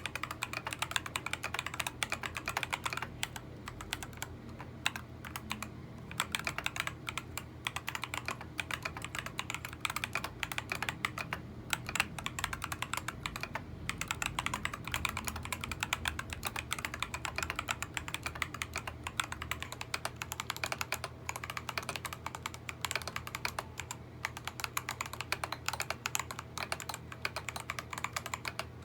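Steady, continuous typing on a stock Keychron V5 mechanical keyboard with tactile switches, a dense run of key clacks.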